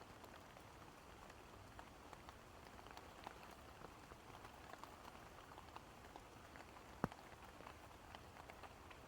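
Faint steady rain with many small scattered drip ticks, and one louder single drop landing about seven seconds in.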